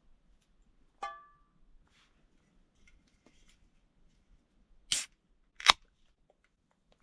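A single metallic clink that rings briefly about a second in, then two sharp clacks about a second apart near the end, the second the loudest.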